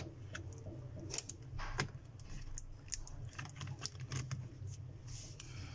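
Scattered light clicks and taps of a laptop battery pack being handled and pressed into the plastic chassis of an open HP Envy 15 laptop, with a screwdriver working at its edge. A low steady hum runs underneath.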